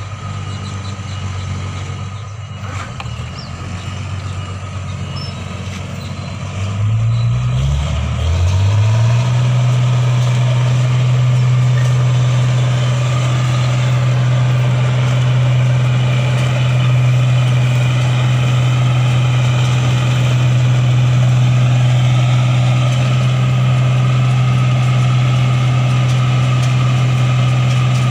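8070 combine harvester's diesel engine running while it cuts rice, with a steady low drone. About seven seconds in the engine speeds up and grows louder, then runs on at the higher speed.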